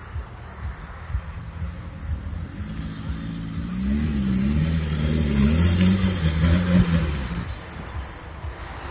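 Off-road 4x4's engine revving hard as it climbs a dirt bank, building from about two and a half seconds in. The pitch rises and falls several times, loudest between about four and seven seconds in, then eases off.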